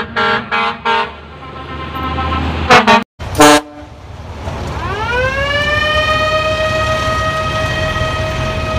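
Truck horns: a quick string of short toots in the first second, two loud short blasts about three seconds in, then one long blast that climbs in pitch over about a second and holds steady.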